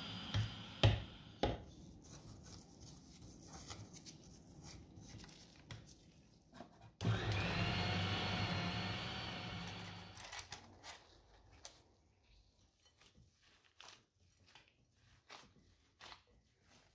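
A small electric appliance motor. A run dies away in the first second; then, after a few knocks and clicks, it starts again about seven seconds in, its whine rising as it spins up, runs for about three seconds and winds down. Scattered light clicks and taps follow.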